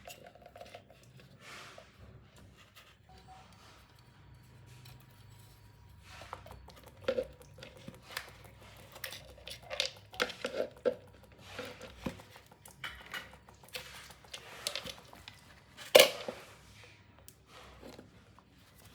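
Hands working on parts and tools: scattered clicks, taps and rustling, busier in the second half, with one sharp loud click about three-quarters of the way through.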